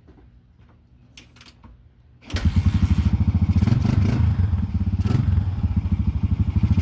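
1990 Yamaha XT 350's single-cylinder four-stroke engine starting up after a few faint clicks, about two seconds in, then running loud and steady on its newly fitted carburetor.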